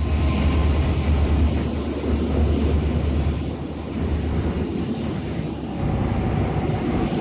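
Diesel-electric freight locomotives passing slowly with a steady, deep engine rumble, which eases about six seconds in.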